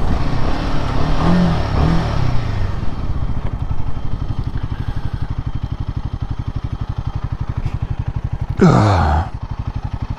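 Royal Enfield Himalayan 450's single-cylinder engine coming off throttle with a couple of short blips as the bike slows, then settling into a steady, evenly pulsing idle. Near the end a brief loud sound drops sharply in pitch over the idle.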